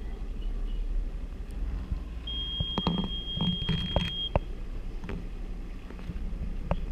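Sea-Doo jet ski engine idling with a steady low rumble as it moves slowly. Midway a steady high electronic beep sounds for about two seconds, and several sharp clicks come through.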